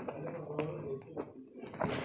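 A woman's faint low hum, held for under a second near the start, with a few soft clicks.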